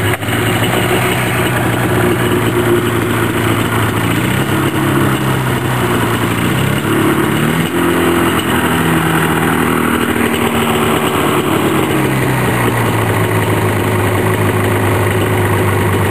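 Freshly rebuilt snowmobile two-stroke engine idling steadily, its speed wavering up and down a little in the middle. The idle is set slightly low and needs turning up.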